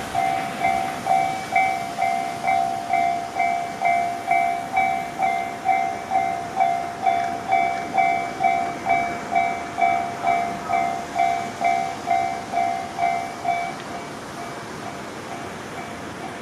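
Railway level crossing alarm bell ringing in a steady, quick-fading 'kan-kan' rhythm of about two strikes a second, warning of an approaching train. The near ringing stops about three seconds before the end, leaving a steady noise with fainter ringing.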